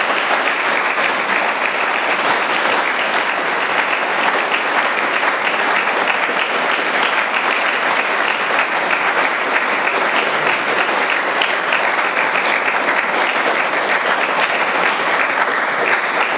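Large crowd applauding steadily, a dense unbroken clapping.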